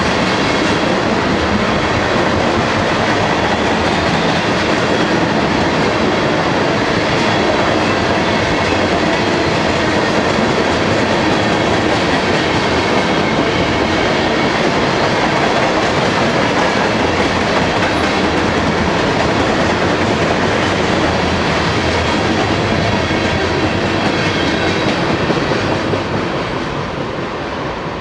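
A freight train of tank cars rolling past on the rails with a steady, dense rumble of wheels and cars. It fades near the end as the last car passes.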